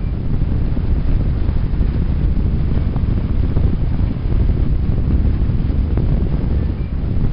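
Gas jet flame burning steadily: an even, deep rushing noise that does not change.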